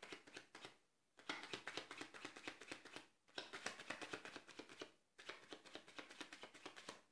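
Overhand shuffle of a deck of playing cards: faint, quick patters of cards slapping off the deck, in three runs of about two seconds each after a short first one, with brief pauses between them.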